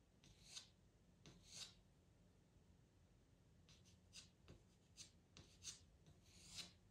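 Faint scratching of a pastel pencil on Pastelmat paper: about ten short, quick strokes laying in fine fur hairs, with a pause of a second or two before a faster run of strokes in the second half.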